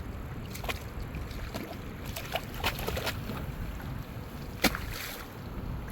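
Steady low wind rumble on the microphone, with scattered short clicks and knocks, the sharpest one a little over four and a half seconds in.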